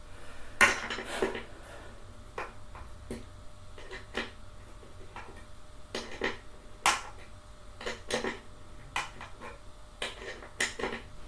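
Hex key turning bolts during chair assembly: irregular sharp metal clicks and clinks, a dozen or so, the loudest about a second in and again about seven seconds in.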